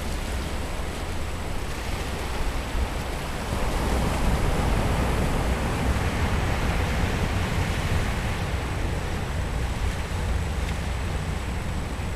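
Ocean surf washing in over a rocky reef shore, a steady rushing wash that swells a little louder about four seconds in, with wind rumbling on the microphone underneath.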